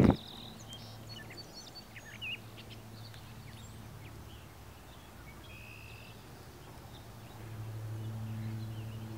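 Wild birds chirping and calling in short, scattered notes, over a faint low steady hum that grows louder near the end.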